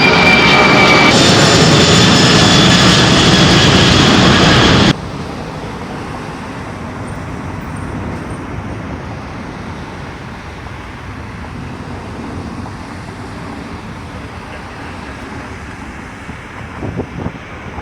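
Jet airliner engines running loud, with a steady high-pitched whine whose pitch steps up about a second in. The sound cuts off suddenly about five seconds in, giving way to a much quieter, steady jet rumble.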